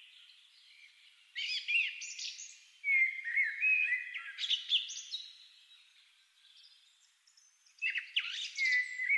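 Birdsong: several separate phrases of high chirps and quick rising-and-falling whistles, with short quieter gaps between them.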